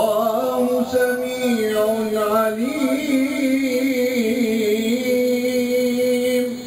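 A man's voice reciting the Quran in the melodic mujawwad style, drawing out one long held note with a few wavering ornaments in the middle, then stopping near the end.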